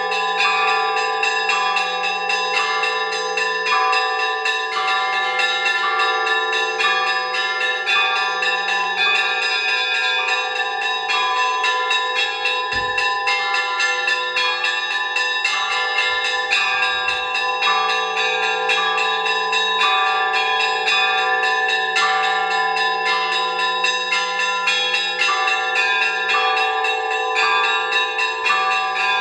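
Monastery church bells of several pitches rung together for Vespers, struck in a rapid, steady, overlapping pattern so that their tones ring on continuously.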